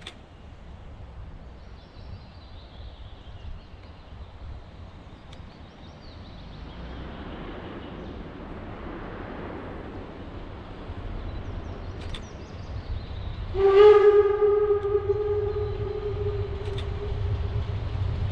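Narrow-gauge steam locomotive approaching, its low rumble slowly growing louder. About two-thirds of the way through, it gives one long steady steam-whistle blast of about three seconds, the loudest sound.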